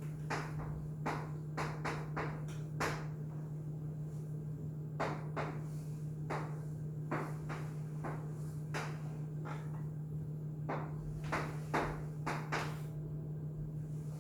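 Irregular sharp taps and knocks, some in quick pairs or clusters, over a steady low electrical-sounding hum.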